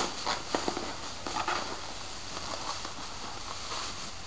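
Plastic bubble wrap rustling and crinkling as it is handled and unwrapped by hand, with scattered sharp crackles, busiest in the first second or so and softer after.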